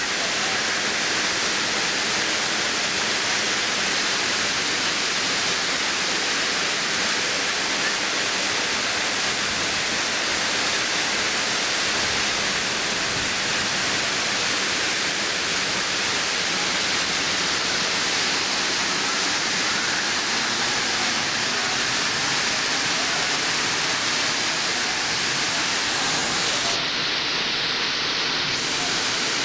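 A tall waterfall pouring down a rock face: steady rushing of falling water.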